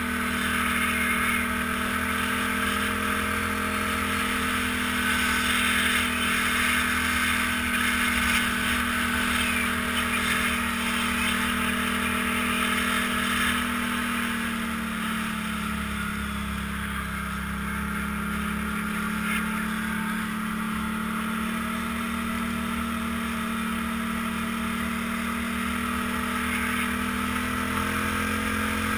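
ATV engine running steadily as the quad rides along, easing off and dropping in pitch about halfway through, then picking up again near the end.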